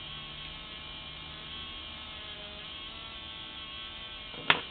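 Steady electric buzz and hum from an HHO cell's cooling unit, its fan and circulating pump running, with a sharp knock near the end.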